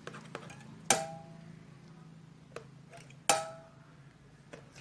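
A rubber band stretched over a box and raised on pencil bridges, plucked twice about two and a half seconds apart. Each pluck gives a short twang that rings and dies away within about half a second. A couple of faint clicks fall between and after the plucks.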